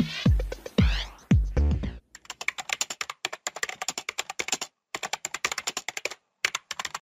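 Electronic music with falling bass notes ends about two seconds in. Rapid computer-keyboard typing clicks follow, a typing sound effect, broken by two short pauses.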